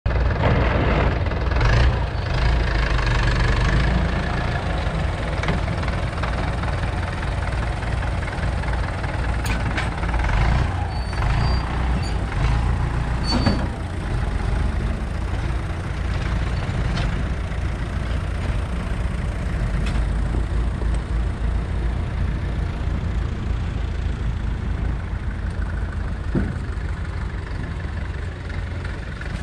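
UTB tractor's diesel engine running steadily, driving a Greenland round baler. Several knocks and clatters come in the middle as the baler's tailgate swings open and the bale drops out.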